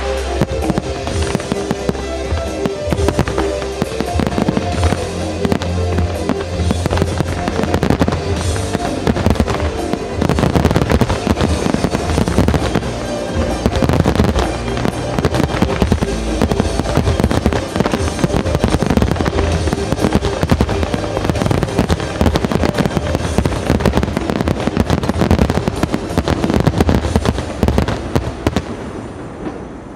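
A dense barrage of aerial firework shells bursting and crackling in quick succession, over music. The bangs thin out near the end.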